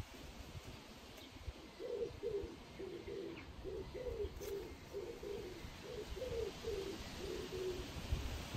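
A pigeon cooing: a run of soft, low, repeated coos from about two seconds in until about seven seconds, over a faint low rumble.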